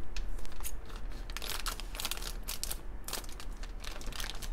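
Thin clear plastic Happy Meal toy bag crinkling and crackling in irregular bursts as hands pull it open and work the toy out.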